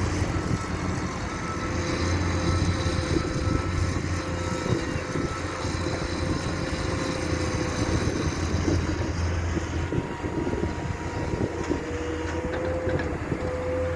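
Heavy diesel construction machinery, a wheel loader and dump truck at work, running steadily with a low drone and a faint steady whine.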